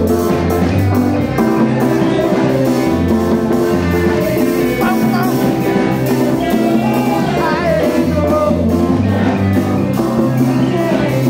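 Upbeat gospel praise music: singing over a steady drum beat and bass line.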